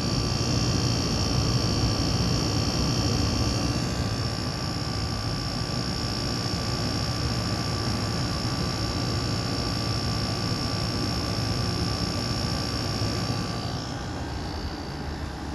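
Amana Cool Zone 5,000 BTU window air conditioner running on high, heard from its outside end: the compressor roar of its Matsushita rotary compressor under a steady hum and the rush of the condenser fan.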